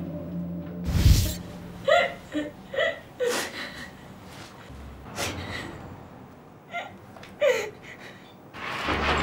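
A dull thump about a second in, then a woman whimpering and sobbing in short, high cries with sharp breaths between them.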